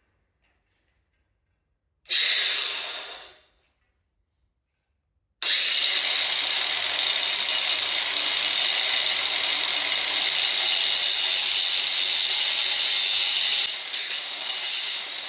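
Angle grinder run briefly and left to spin down, then, after a short pause, run steadily for about eight seconds cutting into the wall, easing off a little near the end.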